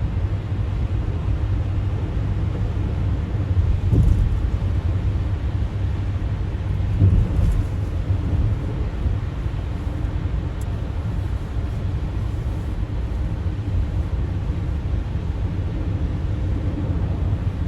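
Car driving on a snowy highway: a steady low rumble of tyres and engine, with a faint steady hum. Two brief thumps stand out, about four and seven seconds in.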